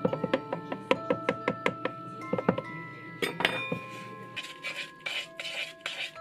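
Music-box style background music over a fast run of sharp clicks, about five a second for the first three seconds, as a fork pricks tart dough against the bottom of a fluted metal tart pan. About three seconds in comes a louder metallic clatter, then rustling as the pan is handled.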